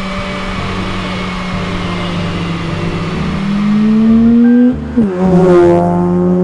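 Mazda RX-8's twin-rotor RENESIS Wankel engine under way: it runs at steady revs, then revs rise for a second and a half. It drops sharply and picks up again at a lower pitch, climbing slowly.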